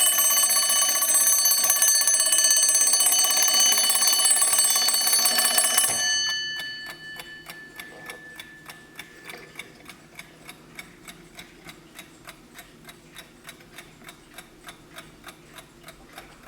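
Vintage Wehrle Sanssouci mechanical alarm clock: its alarm bell rings loudly and continuously, then stops about six seconds in, the bell's tone fading away over a few seconds. After that the clock ticks steadily and quietly.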